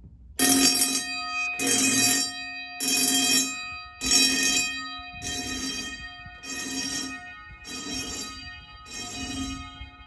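Edwards 439D vibrating fire alarm bells ringing in pulses about once a second, about nine rings in all. They start suddenly about half a second in, set off from a ceiling smoke detector, and grow somewhat fainter toward the end.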